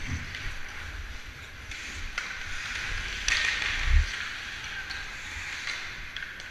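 Ice skate blades scraping and carving the ice stride after stride, close to a camera worn by the skater. A harder, louder scrape comes a little past the middle, ending in a low thump about four seconds in.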